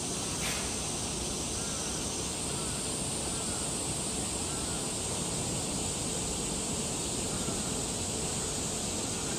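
Steady outdoor background ambience: an even, constant high-pitched hiss with faint short chirps repeating throughout, and a brief click about half a second in.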